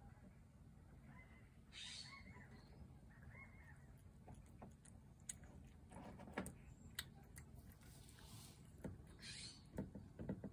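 Faint quiet with a bird calling a few times in the distance, then soft clicks of a cat eating from a dish, most of them near the end.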